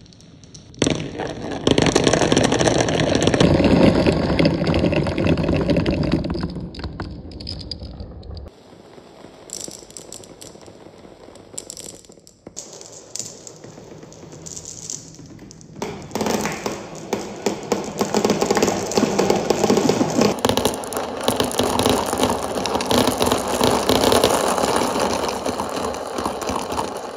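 Many marbles rolling and clattering along marble-run tubes and plastic rain-gutter tracks, a dense rattle of small clicks. It falls off about a third of the way through and builds again past the halfway point.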